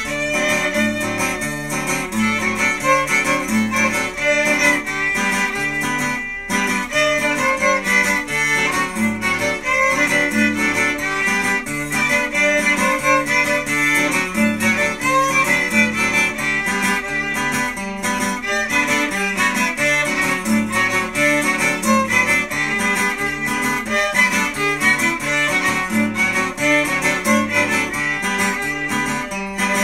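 A violin playing a melody over acoustic guitar accompaniment, with the guitar keeping a steady rhythmic bass and chord pattern.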